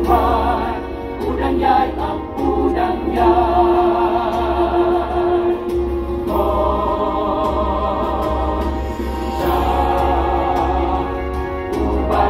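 Mixed choir of women's and men's voices singing together in long held notes with vibrato, phrase after phrase with brief breaks between.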